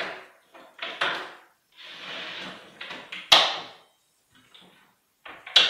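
A steel locking clamp clacking and knocking against a wooden workbench as it is handled, with a short scraping slide about two seconds in and the loudest sharp clack about three seconds in.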